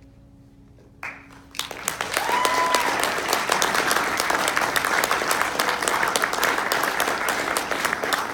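Audience applause breaks out after a brief hush, about a second and a half in, and carries on steadily. A single high call from the crowd rises above it just after the clapping starts.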